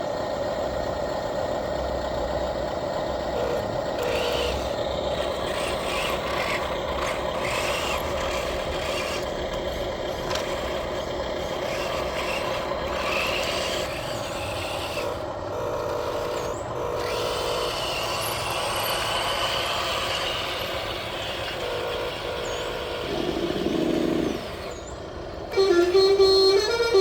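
A truck engine runs steadily, with a short horn-like blast near the end, and then music starts.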